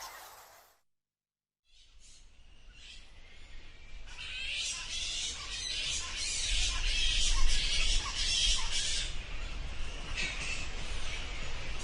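Bats squeaking in dense, rapid high-pitched chirps, starting after a brief silence about two seconds in and growing louder.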